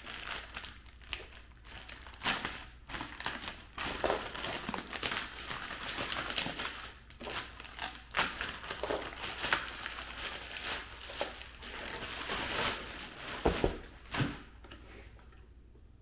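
Clear plastic bag crinkling and rustling in irregular bursts as it is worked off a car-battery-sized battery by hand, with a couple of dull knocks about two seconds before the end.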